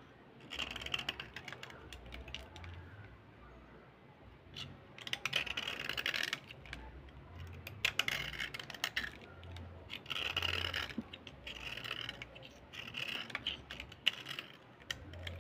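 A small blade scraping along a slate pencil, shaving off powder. It comes in repeated bursts of rapid scratching strokes with short pauses between them.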